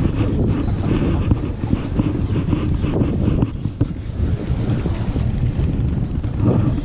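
Wind buffeting the camera microphone on a boat at sea, with the sound of water and waves underneath: a steady, rumbling rush.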